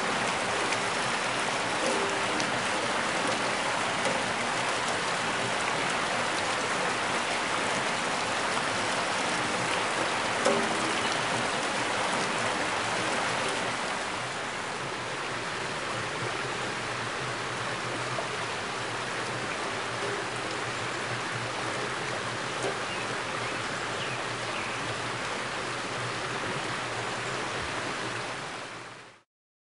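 Water pouring from a flume onto a turning wooden overshot water wheel, a steady rushing splash with a few brief knocks in the first half. It drops a little in level about halfway and fades out near the end.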